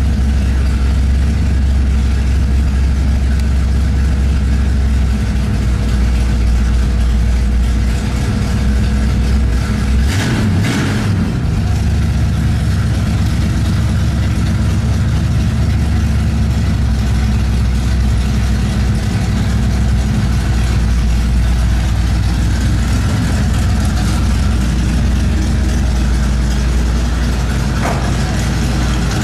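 1967 Chevrolet SS engine running steadily, heard from inside the cabin, with a brief louder burst about ten seconds in.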